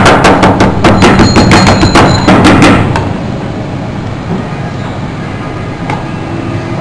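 Metal meat-tenderizer mallet pounding boneless chicken flat on a wooden cutting board: rapid blows, about five a second, that stop about three seconds in.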